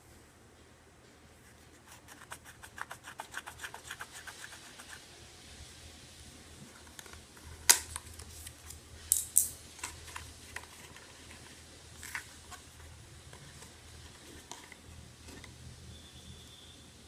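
Unboxing handling noise from a small packaged item: a quick run of crackling clicks lasting a few seconds, then several separate sharp clicks and taps.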